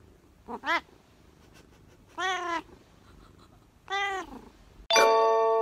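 Domestic cat meowing three times: a short call, then two longer ones that rise and fall in pitch. Near the end a loud, bright chime of several steady bell-like tones cuts in.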